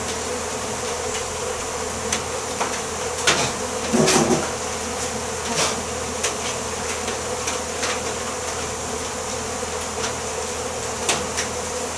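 A crowd of honey bees buzzing steadily as they feed on and clean out honeycomb set out in tubs. Scattered sharp clicks run through it, with a louder clatter about four seconds in.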